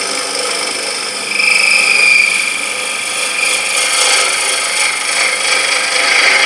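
Freshly sharpened 3/8" beading and parting tool cutting into wood spinning on a lathe: a steady scraping hiss of the cut, with a high whine coming in about a second and a half in.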